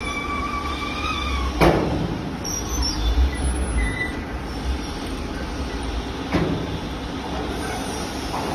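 Overhead hook conveyor of a paint line running with hanging gate valves: a steady low rumble, a squeal through the first second and a half, and two metal clunks, one about a second and a half in and one about six seconds in.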